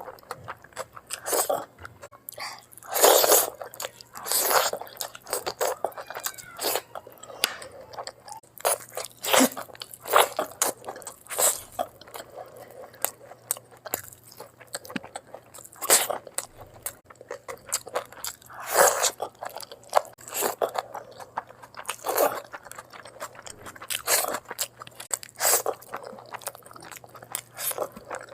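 A person eating close to the microphone: irregular crunching, biting and chewing of food, with louder crunches every second or two.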